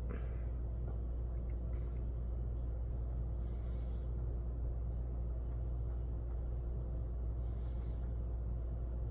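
Steady low background hum, with two brief soft hisses about three and a half and seven and a half seconds in.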